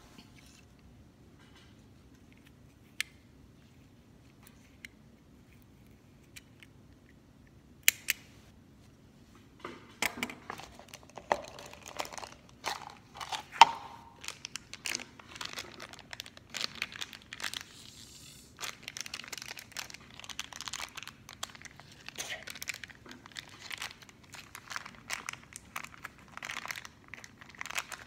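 Clear plastic toy wrapper crinkling as it is handled and torn open by hand. Nearly quiet with a few light taps for the first ten seconds or so, then steady crinkling.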